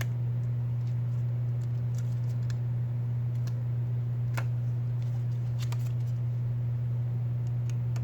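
Steady low electrical-sounding hum, with scattered small clicks and taps of tools and parts handled on an opened phone during a repair.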